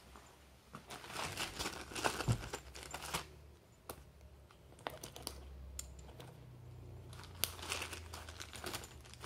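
Hands rummaging through a tool belt's pouches: rustling and crinkling of fabric and a plastic bag with small clicks of metal clips and rings, in two bouts about a second in and again near the end.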